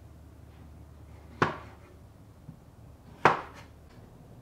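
A meat cleaver chopping tomatoes in half on a wooden cutting board: two sharp knocks of the blade hitting the board, about two seconds apart, with a faint tap between them.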